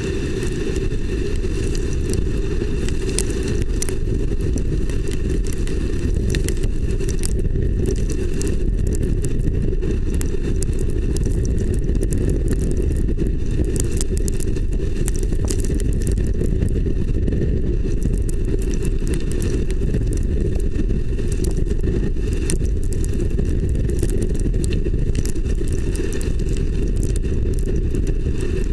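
Strong wind on the microphone of a tornado camera probe, a steady low rumble, with many sharp ticks of rain striking the probe.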